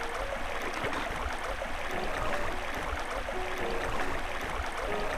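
Running water, a steady rushing hiss like a stream.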